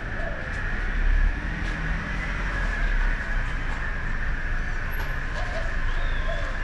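Outdoor town-street ambience: a steady high-pitched drone over a low rumble, with a few faint short chirps near the end.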